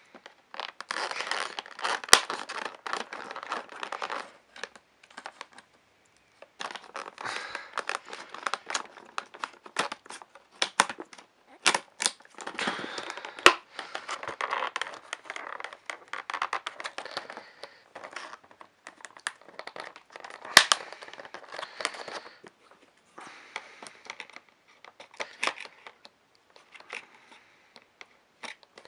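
Model train packaging being unwrapped by hand: irregular bursts of crinkling and tearing with sharp clicks and snaps, pausing briefly about five seconds in.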